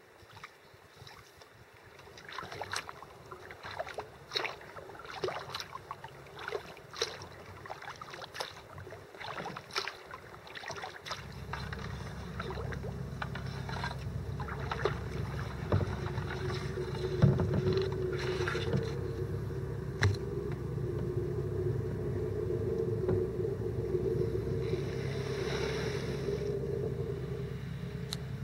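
Kayak paddle strokes splashing and dripping in calm lake water, a few a second, irregular. A steady low rumble comes in a little over ten seconds in and continues underneath.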